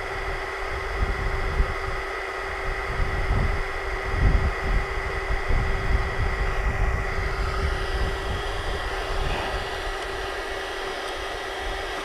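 Wind buffeting the microphone: a steady rushing noise with an irregular, gusting low rumble, under a faint steady hum.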